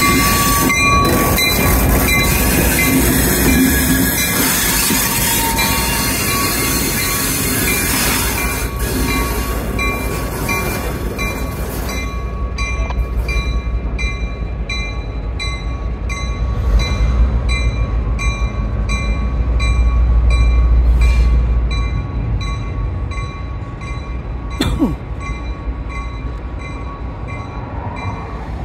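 Diesel locomotive passing close by, loud and full of rumble and rail noise, then drawing away down the track. Its engine rumble swells again near the middle. An evenly repeated ringing, typical of the locomotive's bell, runs throughout.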